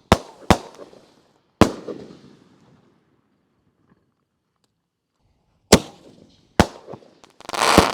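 7-inch triple-break canister firework shells fired from mortar tubes: sharp bangs with echoing tails, three in the first couple of seconds, then after a pause of about four seconds two more and a longer, louder rushing blast near the end.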